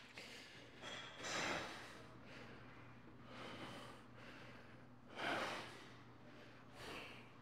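A man breathing hard through his nose and mouth from the strain of flexing in bodybuilding poses. There is a series of heavy, hissing breaths, the loudest about a second and a half in and again about five seconds in.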